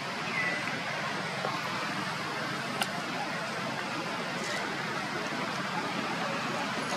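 Steady outdoor background noise with no clear single source, with a short faint chirp near the start and one sharp click about three seconds in.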